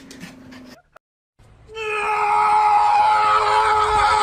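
A long, loud cry held at a steady pitch for about three seconds, starting after a brief silence about a second in.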